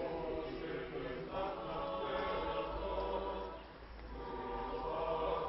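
Choir singing slow, held notes, unaccompanied; the singing eases off about two-thirds of the way through, then swells again.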